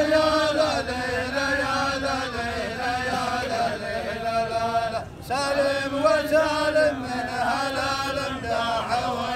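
Rows of men chanting a rajaz verse together in slow, drawn-out unison, in two long phrases with a brief break for breath about five seconds in.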